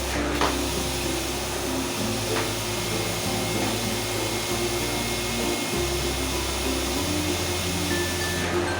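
Vacuum cleaner running steadily, its even whooshing noise heard under background music with a stepping bass line.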